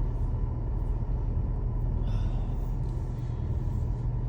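Volkswagen Jetta heard from inside the cabin as it moves slowly, a steady low rumble of engine and drive.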